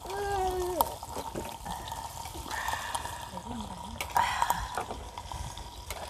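Food sizzling on a tabletop grill pan, a steady hiss, with short scrapes and clatters of tongs and chopsticks on the pan.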